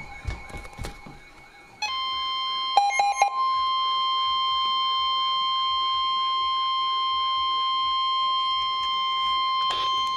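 NOAA Weather Radio warning alarm tone: a single steady high tone at 1050 Hz that switches on about two seconds in and holds until just past the end, with a few short beeps shortly after it starts. It signals that a warning broadcast follows, here a severe thunderstorm warning.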